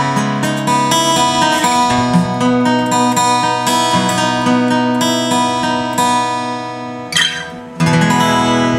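Epiphone AJ-220S solid-spruce-top acoustic guitar being played: chords with notes picked out and left to ring. About seven seconds in there is a brief scratchy noise, and then a loud new chord sounds.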